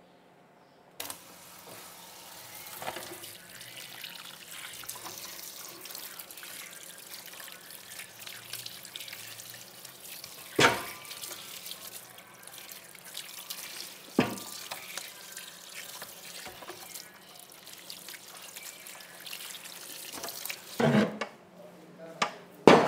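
Kitchen tap running into a sink, starting about a second in, with a few sharp knocks over the water, the loudest near the middle and near the end.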